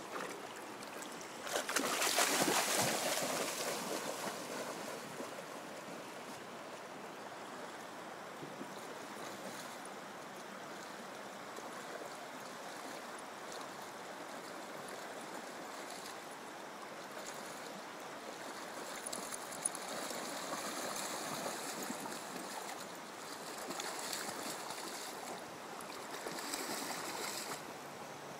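Shallow river water running steadily over a stony bed, with a dog splashing as it wades. The loudest splashing comes about two seconds in, with smaller bouts later.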